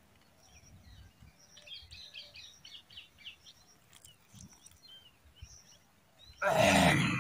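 Faint bird chirps against quiet open-air background noise, then a loud rough rasping burst lasting under a second near the end.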